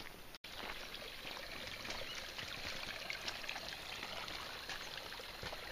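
Water trickling and splashing steadily, a continuous run of small splashes.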